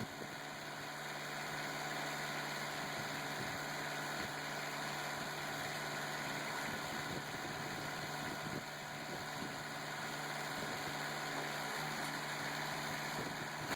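Rim crusher's hydraulic power unit running steadily at an even pitch, with no change in load.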